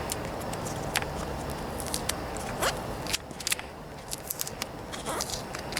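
Duct tape being pulled off the roll in several short ripping pulls, with clicks and crinkling, as it is wrapped around a plastic vacuum hose fitting.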